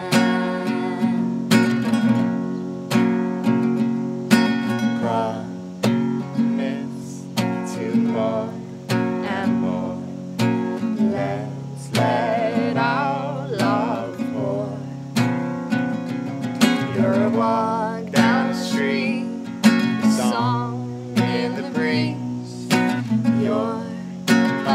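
Acoustic guitar strummed in a steady song accompaniment, with a woman's voice singing a wavering melody over it.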